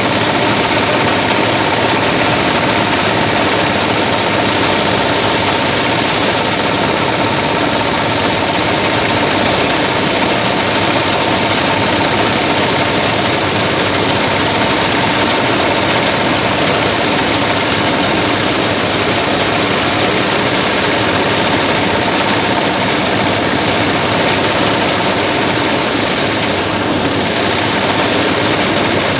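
A J190NL engine and the paddy thresher it drives run steadily together, making a dense, unbroken mechanical din as rice stalks are fed into the threshing drum.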